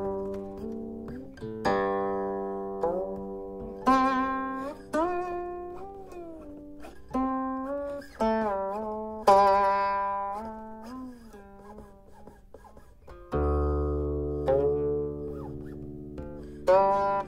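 Slow background music on a plucked string instrument: single notes struck every second or two and left to ring away, several sliding in pitch, with a deeper, fuller note about thirteen seconds in.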